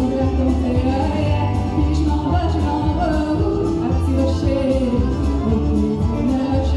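Country song performed live: women singing into handheld microphones over a recorded backing track with a steady bass beat, heard through the PA speakers.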